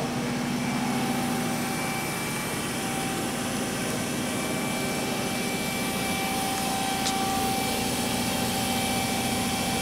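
Steady machine hum with a few held whining tones: a powered-on KIWA KNH-426X horizontal machining center running idle in a machine shop.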